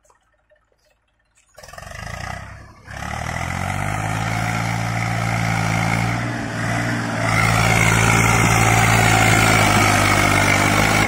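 Eicher 380 40 HP tractor's diesel engine comes in suddenly about a second and a half in and runs steadily under load as it pulls a loaded trolley, growing louder after about seven seconds as it comes closer.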